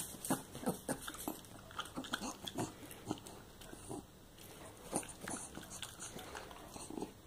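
A dog eating strands of cooked zucchini from a hand: rapid, irregular wet chewing and lip-smacking clicks, several a second.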